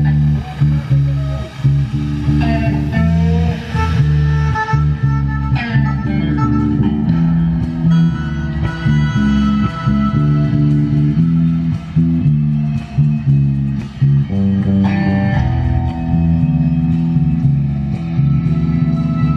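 A band playing music: electric guitar over a bass guitar line.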